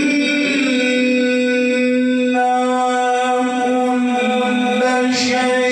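A male qari reciting the Quran in melodic style into a microphone, holding one long, steady note with only slight shifts in pitch, broken by a brief hiss of a consonant about five seconds in.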